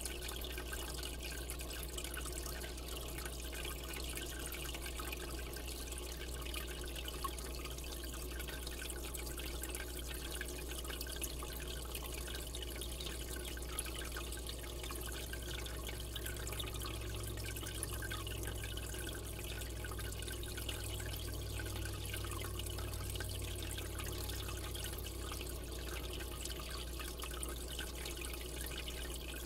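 Aquarium water circulating and trickling steadily, with faint drips, over a steady low hum.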